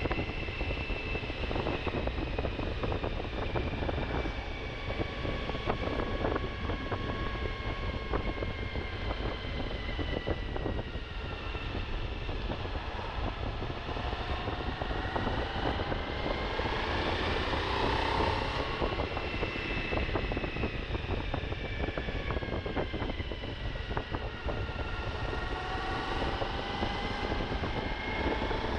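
Suzuki V-Strom motorcycle engine running while riding off road, its pitch rising and falling as the throttle is opened and closed, climbing to a peak about two-thirds of the way in and rising again near the end, over a steady low rumble.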